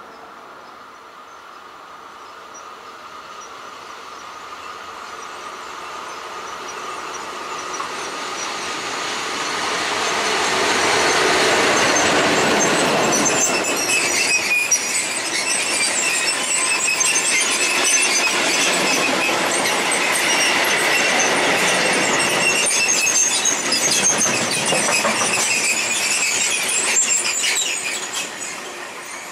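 A freight train of covered sliding-wall wagons passes close by. Its wheels squeal with a high ringing and clatter over the rail joints. The sound builds for about ten seconds as the train approaches, stays loud while the wagons roll past, and falls away near the end.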